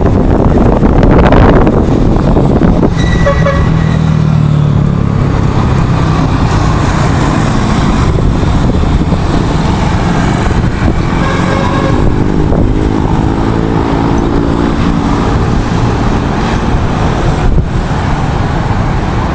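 Loud road traffic, with vehicles passing close by. A car horn gives short toots about three seconds in and again around eleven seconds in, and a passing engine changes pitch soon after.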